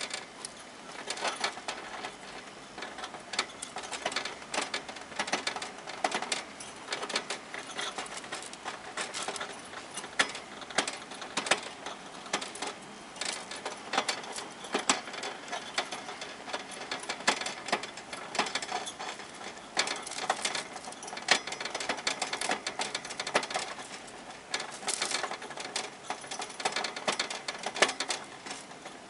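A hamster gnawing on the wire bars of its cage: a rapid, irregular clicking and rattling of teeth on metal that goes on throughout.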